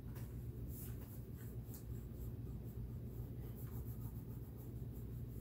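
Wax crayon scratching across drawing paper in a run of quick, short shading strokes, over a steady low hum.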